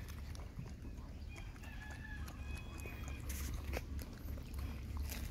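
Faint, thin, high-pitched animal calls around the middle, over a low rumble, with a few soft clicks later on.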